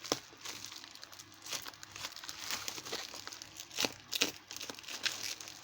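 Packaging crinkling and rustling as it is handled and unwrapped, in short irregular crackles, with a few louder ones about four seconds in.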